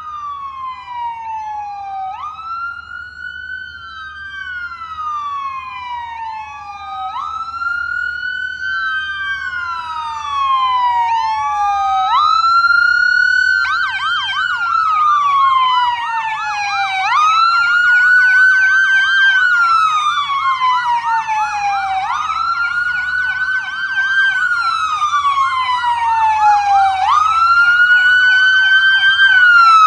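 Sirens of an approaching fire-truck convoy: a wail rising and falling slowly, about once every five seconds. About halfway through a second siren joins with a fast yelp, and the sirens grow steadily louder as the vehicles draw near.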